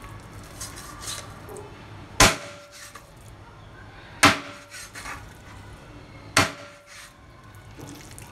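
Three heavy chops of a large kitchen knife through raw chicken onto a cutting board, about two seconds apart, each followed by a short ring, with quieter handling of the meat between.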